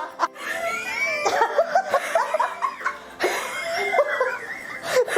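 A group of young women laughing together, with giggles and chuckles overlapping in repeated fits and short pauses between them.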